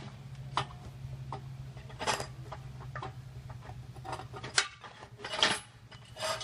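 Steel rods and bolts clinking against steel square base tubing as they are worked down through its holes: several sharp metallic clinks, the loudest about two seconds in and about five and a half seconds in. A steady low hum runs underneath and drops out shortly before the end.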